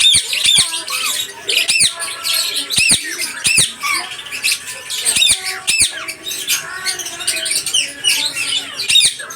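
Pet lovebirds chattering, with a rapid, continuous stream of shrill high-pitched squawks and chirps.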